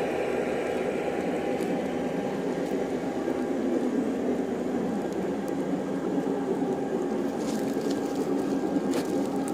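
G-scale model freight cars rolling past on garden railway track: a steady rolling noise of metal wheels on the rails, with a few light clicks near the end.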